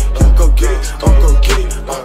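Hip hop track between rapped lines: deep bass notes held long under sharp drum hits and a melodic line.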